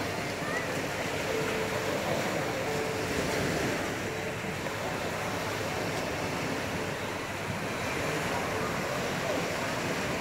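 Small sea waves breaking and washing up a sandy beach: a steady surf.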